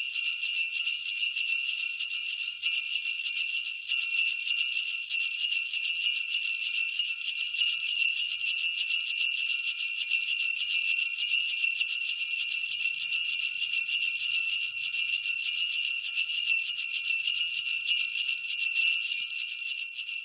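Sleigh bells shaken continuously in a fast, steady, high-pitched jingle: the alarm that signals the countdown timer has reached zero.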